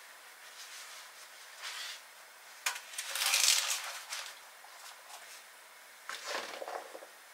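Dry, brittle filo pastry sheets crackling and rustling as they are handled. The loudest crinkly stretch lasts about a second and a half, a few seconds in, and a shorter rustle follows near the end.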